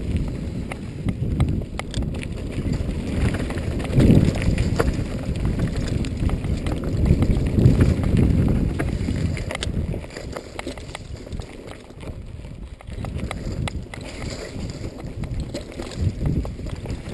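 Wind buffeting the camera microphone on a Norco Storm hardtail mountain bike riding down dirt singletrack, with rumble from its knobby tyres and clicks and rattles from the bike over bumps. It is loudest around four and eight seconds in and eases for a few seconds after the middle.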